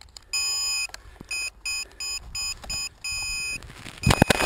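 Electronic beeper on a crashed RC foam plane sounding a high tone in repeated on-off pulses, some short and some long. A burst of knocking and rustling from handling comes near the end.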